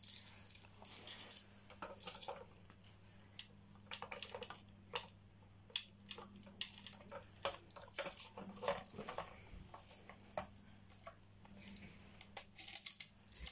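Plastic Lego pieces clicking and tapping as they are handled and fitted together, an irregular scatter of small clicks.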